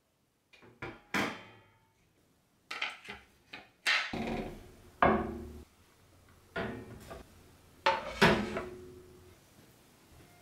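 Wooden cutting boards knocking and clattering against white wire storage baskets and the counter as they are set in place: about seven separate knocks, each ringing briefly before it dies away.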